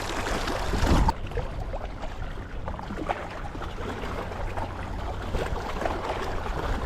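Wind buffeting the microphone: a steady low rumble with hiss, louder for about the first second before the hiss drops away suddenly.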